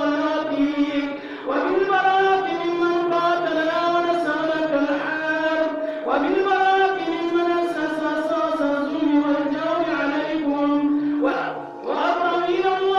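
A male voice chanting a noha, a Muharram lament, in long drawn-out melodic phrases with short breaks between them.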